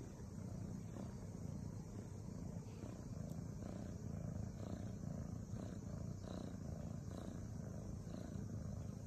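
Cat purring steadily, a low continuous rumble, while being stroked under the chin.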